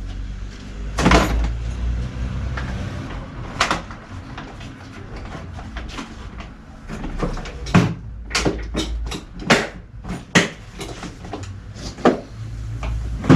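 Irregular knocks and clicks of objects being handled, a few at first and then a quicker run of them over the second half, over a low rumble.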